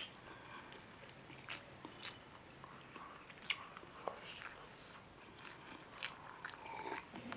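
A person chewing and biting food close to the microphone, with scattered short wet mouth clicks and small crunches.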